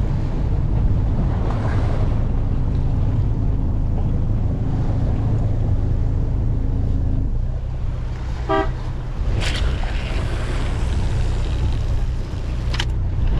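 Steady wind rumble on the microphone over choppy sea water around a small boat. About eight and a half seconds in there is a brief pitched, stuttering buzz, and two sharp clicks follow later.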